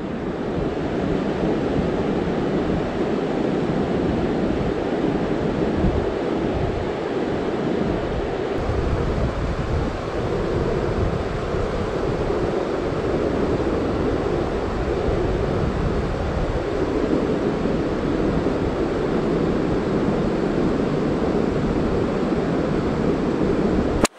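Steady rush of river water, with wind rumbling unevenly on the microphone.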